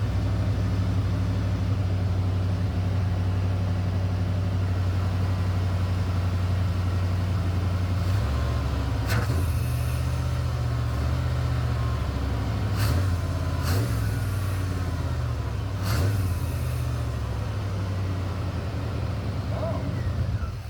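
1990 Chevrolet C1500 pickup's engine running at idle. It turns uneven from about eight seconds in, its pitch wavering, with a few sharp clicks over the top. The owner first suspected a vacuum leak but takes the rough running for a cold engine that hasn't run in months.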